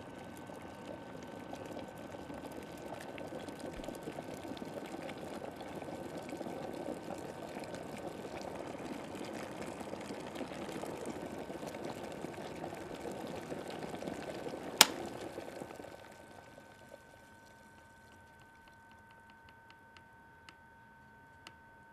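Electric kettle heating water to the boil, its boiling noise building steadily; about fifteen seconds in its switch clicks off sharply and the boiling dies away within a second, followed by a few faint ticks.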